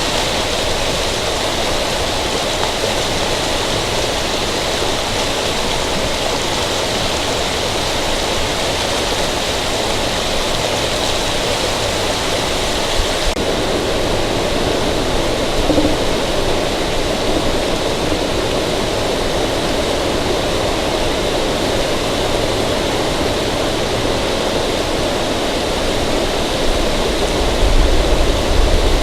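Steady rushing outdoor noise with no distinct events, joined by a low rumble that builds near the end.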